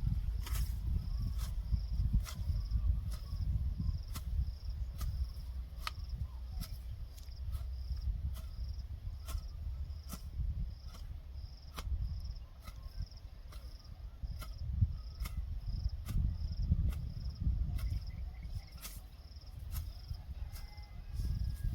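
Insects chirping in a steady pulsing rhythm, about three chirps a second, over a low rumble, with scattered sharp clicks.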